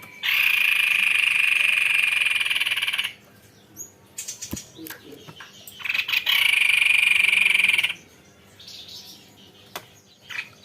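White-necked babbler singing two long rolling trills, the first about three seconds long and the second about two, with a few short chirps between them.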